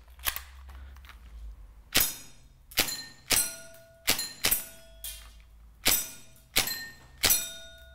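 Marzen Ingram M11 gas blowback airsoft gun firing single shots in quick, uneven succession, about eight of them from about two seconds in. Several shots are followed by the short ring of a hit steel target plate.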